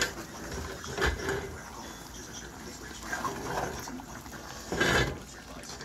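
A metal ladle stirring in an aluminium pot of simmering potato greens, knocking against the pot a few times, the loudest knock about five seconds in, over a steady bubbling.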